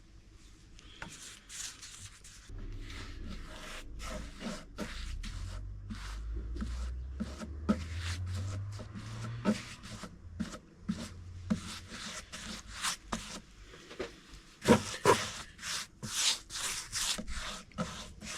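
Irregular rubbing and scraping strokes on wood. They come faster and louder near the end, and a low rumble sits under them in the first half.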